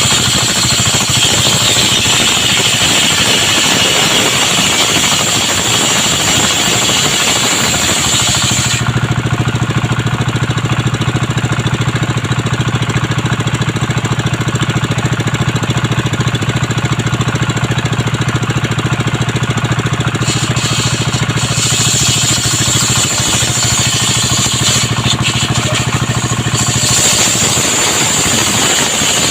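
Engine-driven circular sawmill sawing young coconut wood. For about the first nine seconds there is a loud high cutting whine over the engine. The engine then runs on steadily while the blade spins without a cut, and the high whine returns briefly near the end.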